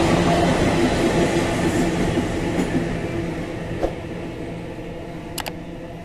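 Open freight wagons of a train rolling past on the rails. The rumble and wheel noise fade away over the first four seconds as the train leaves. A short, sharp double click comes near the end.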